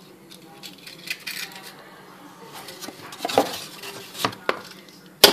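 Dishes and kitchen utensils clinking and knocking in a series of short, irregular strikes, with a busier stretch a little past the middle and one sharp, loud knock near the end.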